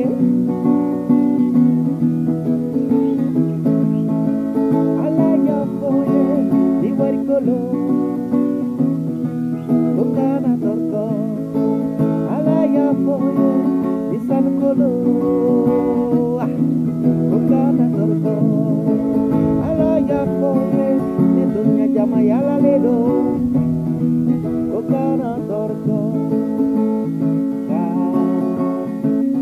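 Acoustic guitar strummed steadily, with a man's voice singing over it at times.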